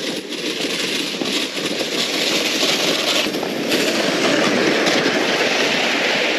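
A loaded hard-shell ice-fishing sled dragged over crusty snow, with boots crunching alongside: a steady scraping hiss that grows louder about four seconds in as the sled passes close by.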